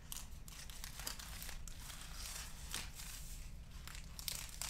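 Trading-card pack wrappers crinkling and tearing as packs are handled and opened, in irregular little crackles.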